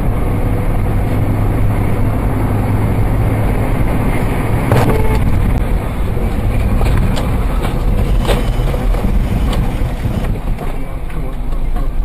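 Steady road and engine noise of a moving car, with a few sharp knocks in the middle.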